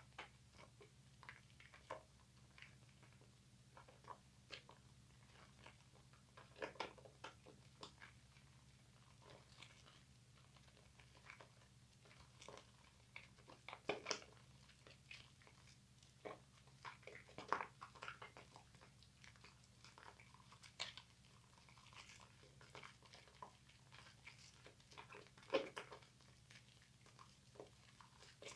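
Hands working a wet bar soap into thick lather: faint, irregular wet squelches and crackles of foam being squeezed and rubbed.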